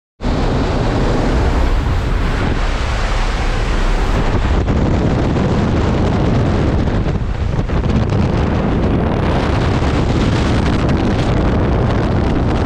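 Loud, steady rushing wind buffeting the microphone, as on a skydiver's camera.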